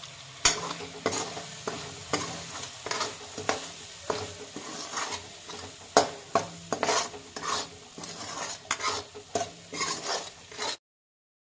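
Metal spatula scraping and knocking against an aluminium kadhai, stirring spices and mustard-garlic paste as they roast in hot oil, over a light sizzle. The scrapes come irregularly, about two a second, with sharp knocks about half a second in and about six seconds in, and the sound cuts off suddenly near the end.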